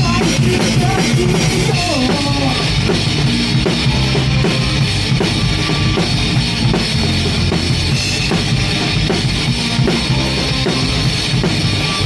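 Live band music with the drum kit to the fore: a steady beat of kick drum and snare with cymbals, in an instrumental passage without singing.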